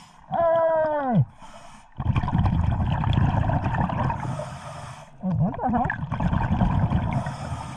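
Scuba diver breathing underwater through a regulator: short hissing inhalations alternate with long rumbling, gurgling exhalations of bubbles. Near the start, a short loud tone falls steeply in pitch.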